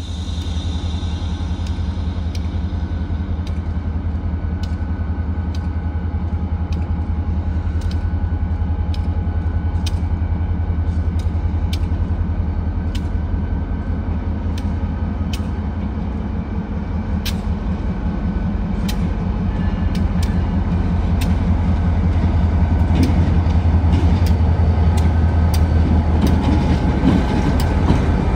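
Two New England Central Railroad diesel-electric locomotives approaching and passing, their engines giving a steady low drone that grows louder toward the end. A sharp tick sounds about once a second throughout.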